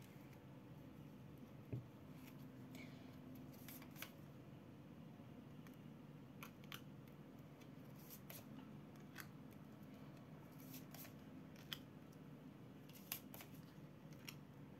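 Near silence: room tone with a faint low hum and scattered faint clicks and ticks every second or two.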